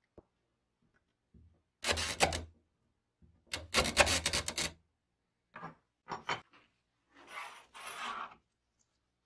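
Vintage 3M Scotch M-96 definite-length tape dispenser worked by its side lever, its feed mechanism clicking and rasping. There are two longer bursts of rapid clicks, then a few short clicks, then two softer rasping sounds near the end.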